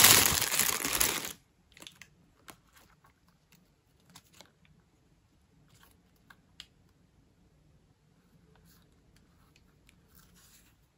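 Packaging crinkling and tearing during an unboxing, loud for about the first second and then cutting off suddenly, followed by scattered faint clicks and small rustles of handling.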